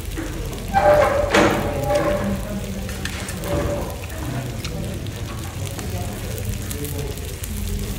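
Meat and seafood sizzling on a tabletop samgyupsal grill pan, a steady frying hiss, with voices in the background about a second in and again midway.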